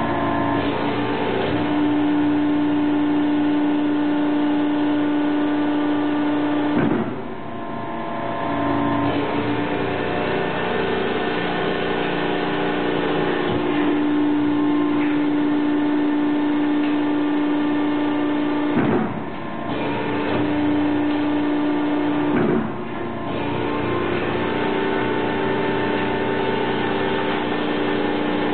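Samco 75 hydraulic die-cutting press running: a steady machine hum whose main tone switches off and back on several times, with three sharp knocks spaced through it, each followed by a brief dip in level.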